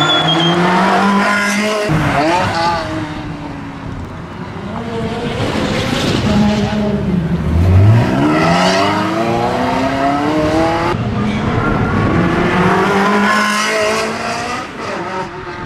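Ferrari 360 Spider's V8 engine revving hard as the car accelerates. Its pitch climbs and falls back several times through the gear changes, with the longest, strongest climb about halfway through.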